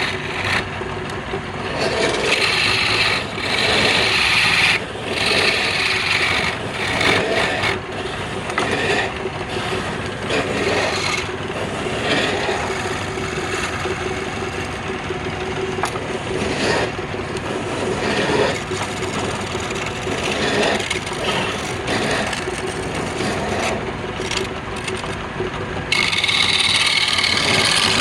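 Wood lathe running, with a tool scraping against the spinning wooden workpiece in uneven passes under a steady motor hum. Louder hissing passes come about two to five seconds in and again near the end.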